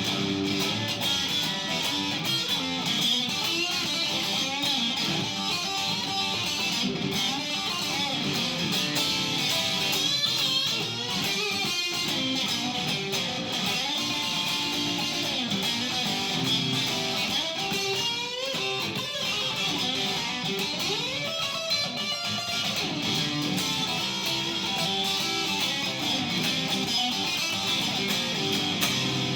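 Solo guitar improvising a blues, with notes bent up and down.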